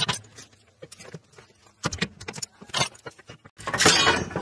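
Metallic clinks and rattles from hands and tools working on a car's front coil-spring suspension: scattered sharp clicks, then a louder scraping rattle near the end.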